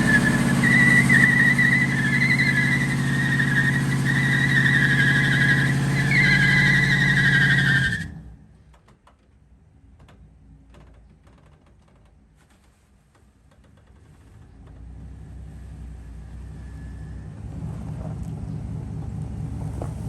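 Car engine held at high revs in a burnout attempt, with a loud, wavering high squeal over it. Both cut off abruptly about eight seconds in, and the engine sound builds back up over the last few seconds. The owner reports that the transmission is slipping.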